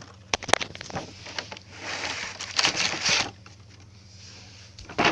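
Handling of a toy-car pack: a few light clicks and knocks, then about a second and a half of rustling packaging, and a sharp knock near the end.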